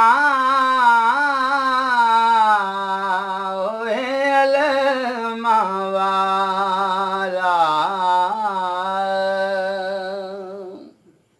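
A man singing solo without accompaniment in a devotional qaseeda style. He draws out long held notes with wavering vocal ornaments and no clear words. The voice fades out and stops shortly before the end.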